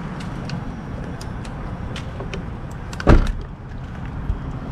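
A steady low rumble with scattered light clicks, and one short, dull thump about three seconds in that is the loudest sound.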